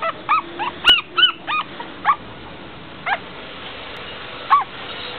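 Young puppies whimpering: a quick run of short, high yelps that rise and fall in pitch in the first two seconds, then two more single whimpers spaced well apart.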